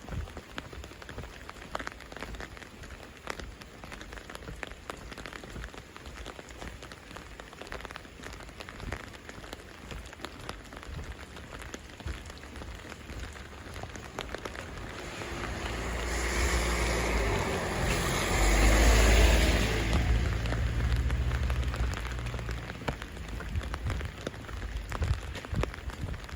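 Winter rain falling steadily, with many small drops ticking and pattering. About two-thirds of the way in, a louder rushing noise with a low rumble swells up, peaks and fades over several seconds.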